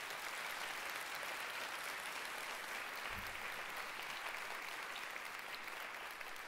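Audience applauding: a steady round of clapping that eases off slightly near the end.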